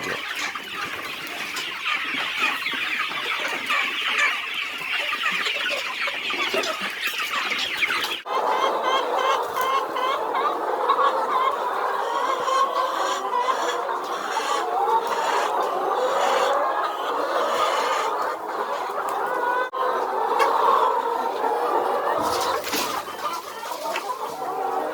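A large flock of chickens in a poultry house clucking and calling over one another in a continuous din, with abrupt changes at about 8 seconds and about 20 seconds in.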